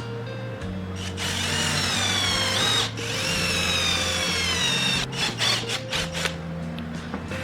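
Electric drill running under load, its whine falling in pitch as it bites, stopping for a moment and starting again, then given about six short trigger bursts. Background music plays underneath.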